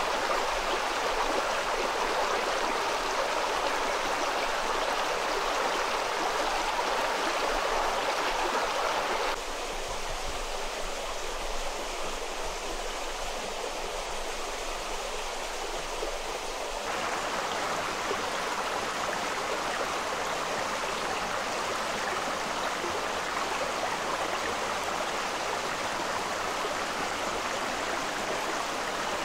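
Steady rush of a running stream. It turns quieter and thinner about nine seconds in and comes back fuller around seventeen seconds.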